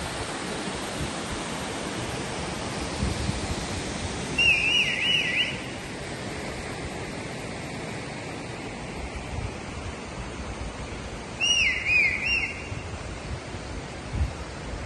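Steady rush of water pouring over a small dam spillway, easing a little after about five seconds. A bird twice gives a quick run of arching chirps, about four seconds in and again about eleven seconds in, louder than the water.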